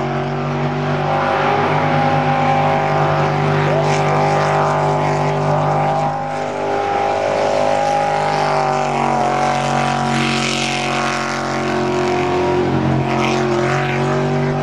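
Jet sprint boat engine running hard through a timed lap, a loud steady drone whose pitch dips and rises a little a few times as the boat works through the turns.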